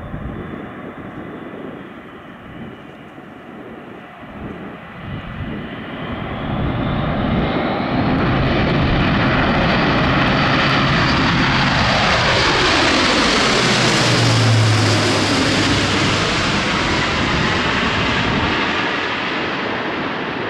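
Airbus A400M Atlas's four TP400 turboprop engines and eight-bladed propellers. The sound builds to full loudness as the aircraft climbs out of a touch-and-go and passes close by, with its tone falling in pitch as it goes past, then eases a little as it heads away.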